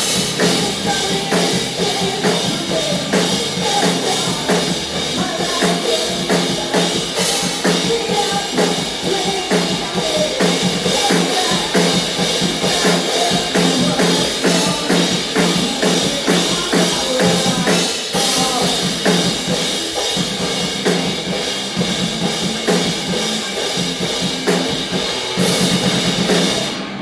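Live rock band playing loudly with the drum kit to the fore, kick and snare driving a steady beat. The music stops suddenly right at the end.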